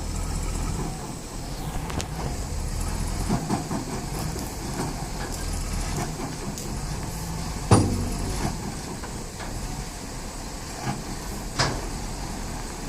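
Heavy machinery engine running steadily at a low rumble, with a loud sharp knock about eight seconds in and a smaller one near the end.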